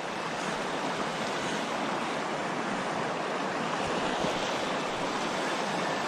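Shallow creek water rushing steadily close to the microphone, an even hiss-like wash with no separate splashes standing out.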